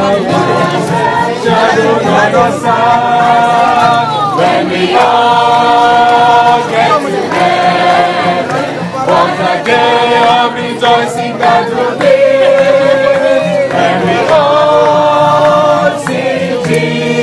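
A group of voices singing a slow hymn together, with long held notes in phrases broken by short breaths.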